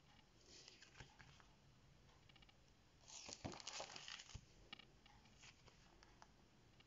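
A coloured page in a punched plastic sheet protector being turned over: a brief rustle and crinkle of plastic sheet about three seconds in, lasting about a second and a half, with faint taps and ticks before and after.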